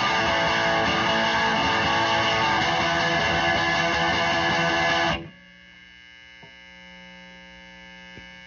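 1965 Gibson SG Junior electric guitar played loud through a 1975 Marshall JMP valve combo amp, with dense ringing chords. The playing cuts off suddenly about five seconds in, leaving the amp's steady hum and buzz.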